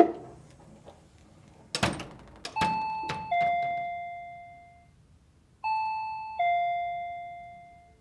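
A sharp click, then a door swinging shut with a thud and a few knocks about two seconds in. This trips a sound/shock sensor, which sets off a Revex Pika Flash wireless chime: a two-tone ding-dong, higher note then lower note fading away, played twice.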